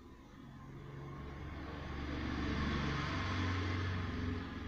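A motor vehicle passing by: a low engine hum with road noise that swells over a couple of seconds, holds, then starts to fade near the end.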